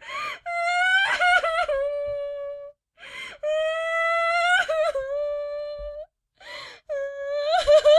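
A girl crying in three long, high-pitched wails, each held on a fairly steady pitch and breaking at its end, with a sharp gasping in-breath before each wail.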